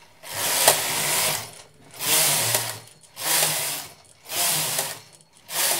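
Carriage of a Brother 950i standard gauge knitting machine pushed across the needle bed five times, knitting one row with each pass. Each pass is a noisy mechanical whir lasting about a second, with short pauses between passes.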